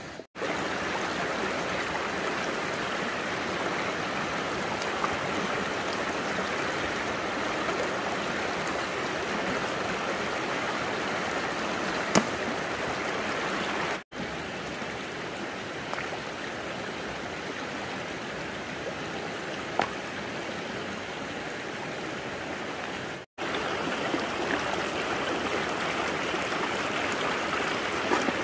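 Steady rush of running water, like a stream, with two brief dropouts and a few faint knocks.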